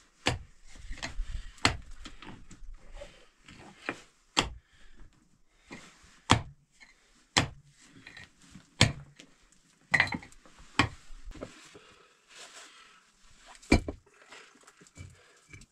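A hand pick striking into hard, stony earth: about a dozen sharp blows at an uneven pace, a second or two apart, with loose soil and stones scraping and trickling between the strikes.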